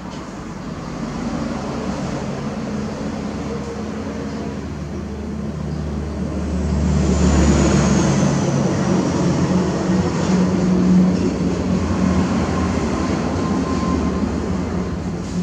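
A low, steady engine rumble that grows louder about halfway through, with a faint falling whistle as it peaks.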